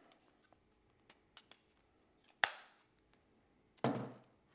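Quiet handling of an AR-style rifle being taken apart: a few light ticks, then a single sharp metallic click about two and a half seconds in, and a brief scuffing noise near the end.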